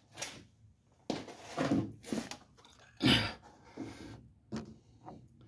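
A string of short, soft scuffs and rustles at irregular intervals: handling noise as a handheld phone camera is moved about under a car.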